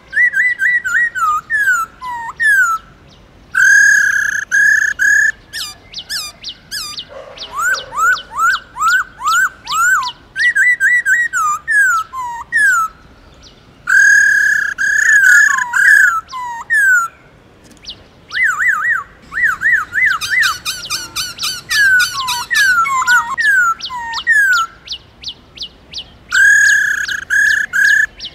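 Black-throated laughingthrush singing: loud, fast runs of clear whistled notes that slide rapidly up and down, broken by short pauses between phrases.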